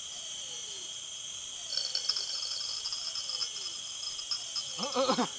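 Crickets and other insects chirping steadily, with a faint falling call repeating about once a second and a short pitched call near the end.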